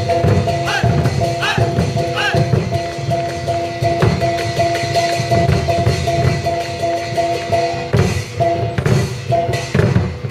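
Live traditional Northern Thai drum ensemble: large drums struck in a dense, driving rhythm under a held, droning melody of steady tones. About a second in, three short rising calls ring out over the drumming.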